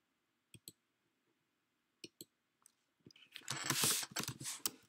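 Computer mouse or trackpad clicks, two quick pairs, then a rapid run of keystrokes on a laptop keyboard near the end as text is typed.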